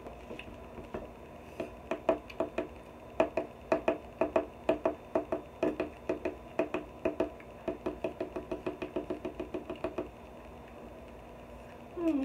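A rapid series of dull knocks, about three a second at first, quickening to about five a second and stopping about ten seconds in.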